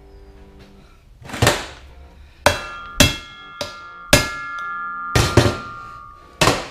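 About eight sharp hammer blows on steel, uneven in spacing, the first about a second and a half in. This is a hammer striking the T-bar and socket on a prop shaft's universal joint clamped in a bench vise, to free a tight circlip. After several blows the steel shaft rings on for a second or more.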